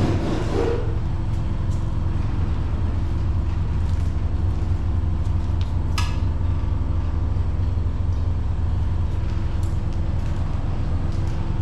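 Steady low machine hum, like a running engine, with a rubbing noise that dies away within the first second and a single sharp click about six seconds in.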